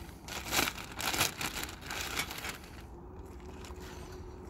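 Clear plastic wrapping crinkling and tearing as it is pulled off a metal tripod, in several noisy bursts over the first two and a half seconds, then quieter.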